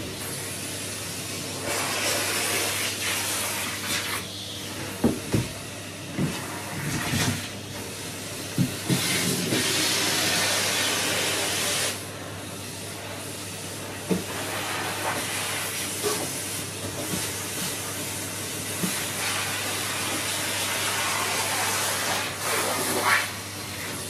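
Numatic Henry canister vacuum cleaner running, its hiss of suction through the hose and wand growing stronger and weaker as the wand is worked over the carpet, over a steady motor hum. A few sharp clicks and knocks, several clustered between about five and nine seconds in.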